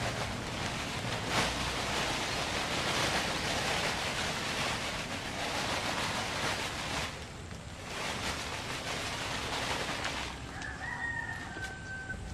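Fertilizer pouring out of a woven plastic sack onto soil, with the sack rustling as it is shaken, in two spells with a short break about seven seconds in. Near the end a rooster crows once.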